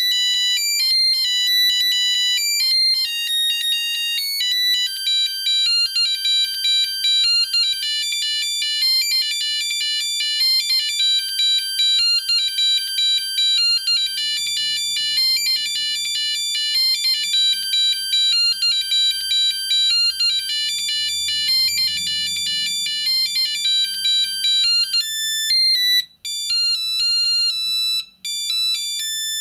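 Siemens C25 mobile phone playing its built-in ringtones: fast, beeping melodies of single electronic notes, one after another. Near the end the melody breaks off in short gaps as it moves to another ringtone.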